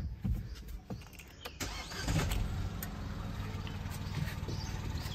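Mahindra XUV300 TGDi's 1.2-litre three-cylinder turbo petrol engine starting about a second and a half in, flaring briefly and then settling into a steady idle. The owner calls the engine very silent, with no vibration.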